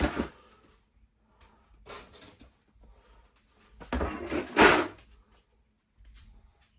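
Hard objects clattering and rustling in bursts as a box of toys is rummaged through, loudest about four to five seconds in.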